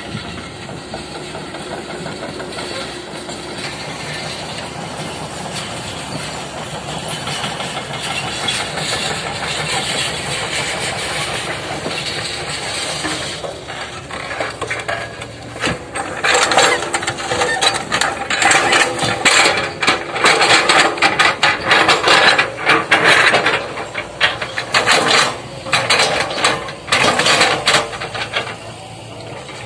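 Hitachi excavator's diesel engine running steadily. From about halfway in, loud irregular knocking and clattering as the log grapple handles and stacks wooden logs.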